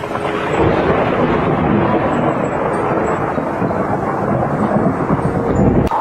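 A loud, steady rush of rumbling noise that starts abruptly, with one sharp click near the end.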